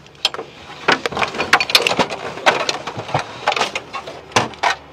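Close, irregular knocks, clicks and rustling as a driver in a fire suit and gloves climbs out of a dragster's cockpit, his suit and gear brushing and bumping against the cockpit right by the microphone.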